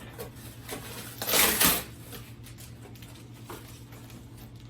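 A package being opened and unpacked by hand: scattered light knocks, with a louder rustle or scrape of the box and its packing about a second and a half in.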